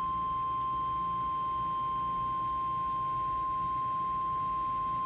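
NOAA Weather Radio 1050 Hz warning alarm tone: a single steady, unbroken tone, the alert signal that announces a new warning, here a tornado warning, about to be broadcast.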